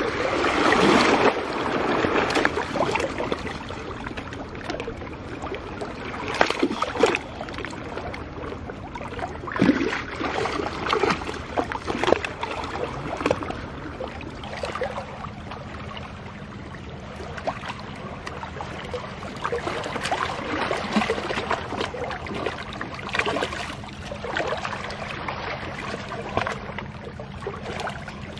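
Shallow stream water splashing and sloshing as people wade and move their hands through it. The splashing is loudest in the first couple of seconds, with scattered smaller splashes after that.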